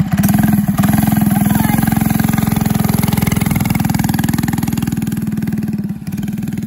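1970 MTD SS400 mini bike's 3 hp Briggs & Stratton single-cylinder engine running steadily as the bike is ridden. It drops in loudness about six seconds in as the bike moves off.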